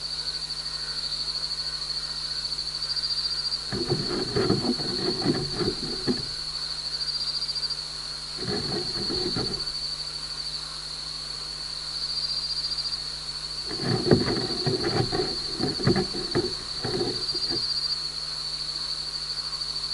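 A gecko's feet scratching and scrabbling on the mesh netting over the microphone, heard very close in three bouts: about four seconds in, around eight and a half seconds, and from about fourteen to seventeen seconds. A steady high-pitched drone runs underneath.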